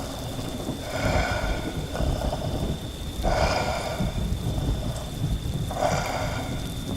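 Thunderstorm ambience: steady rain with a low rumble of thunder, broken three times by short harsh bursts about two and a half seconds apart.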